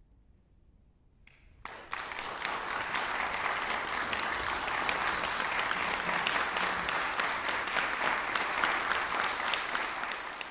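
Near silence for the first second and a half, then a concert audience breaks into applause and keeps clapping steadily, starting to thin out near the end.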